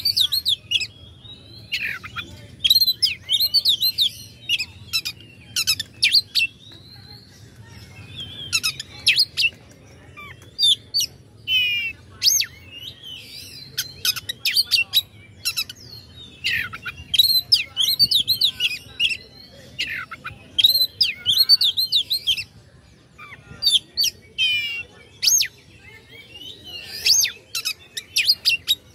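Oriental magpie-robin (kacer) singing in loud, fast phrases of varied whistles, sharp falling slurs and rapid clicking notes, with short pauses between phrases. A faint low hum runs underneath.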